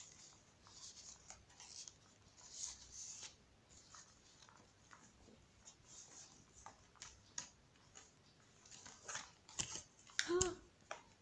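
Paper and card rustling and sliding as the flaps and pockets of a handmade paper junk journal are opened and cards are pulled out, with soft taps of card on the wooden table. A brief vocal sound near the end.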